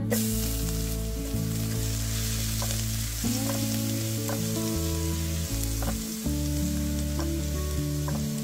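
Minced garlic sizzling in hot oil in a nonstick frying pan, starting abruptly as it goes in, while a spatula stirs it. Guitar background music plays throughout.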